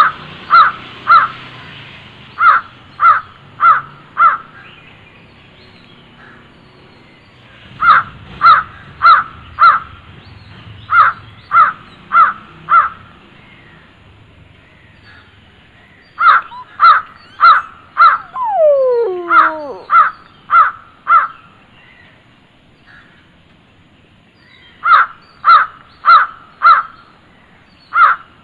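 A bird calling in bouts of four to six short, loud, harsh calls, about two a second, with pauses of a few seconds between bouts. Around the middle, a long falling, sliding note runs under the calls.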